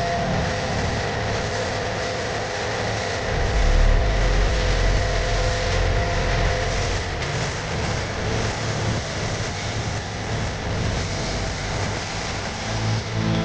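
Pressure washer spraying water: a steady hiss of spray over the hum of the washer's motor.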